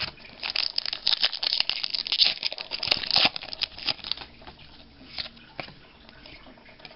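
Foil trading-card pack wrapper crinkling and rustling, with cards flicked and slid through the hands; dense at first, then thinning to occasional ticks after about four seconds.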